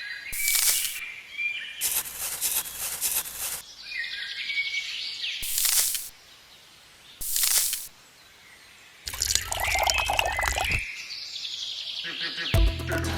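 Birds chirping in short calls, cut across by several loud bursts of hissing noise each about a second long, and a clattering stretch near the end; music comes in just before the end.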